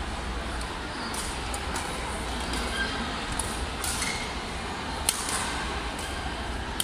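Badminton rally: a string of sharp pops from rackets striking the shuttlecock, the loudest about five seconds in, with a couple of short squeaks, over the steady noise of a large sports hall.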